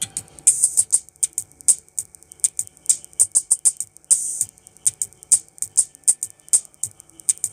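Music played through a small tweeter, heard with the microphone pressed to it: mostly thin, crisp percussion ticks at a quick, steady beat, with almost no bass.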